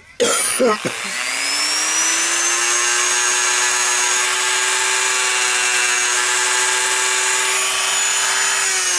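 Handheld rotary tool (Dremel-type) switched on about a second in, its motor whine rising to a steady speed and holding there, then winding down near the end, as it is used to carve lettering into a foam blade.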